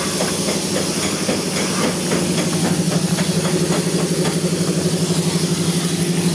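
A machine running steadily with a low hum that pulses rapidly, over a constant hiss, with scattered light clicks.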